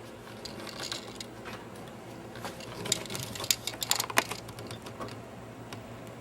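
Honda inverter generator running steadily with a low hum, with a cluster of light clicks and knocks about halfway through.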